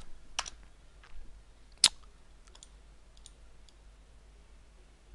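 Scattered computer mouse and keyboard clicks, a handful of single sharp clicks at uneven intervals, the loudest about two seconds in.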